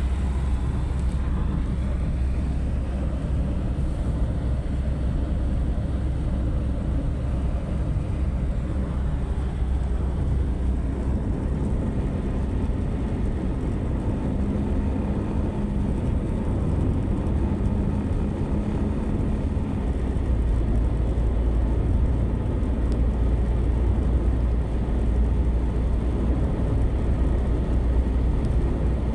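Road and engine noise inside a moving car's cabin: a steady low rumble of tyres on asphalt at highway speed, growing slightly louder about two-thirds of the way through.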